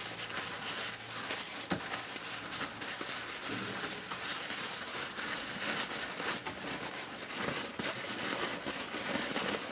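Tissue paper crinkling and rustling as hands unwrap a wrapped plant, a run of small irregular crackles.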